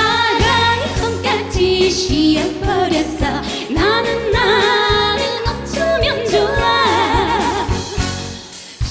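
Two women singing a Korean trot duet with vibrato on the held notes, over a band backing with a steady drum beat.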